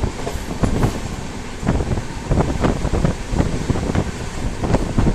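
Passenger train rolling along the track: a steady low rumble with frequent sharp, irregular clacks and knocks from the wheels and carriage.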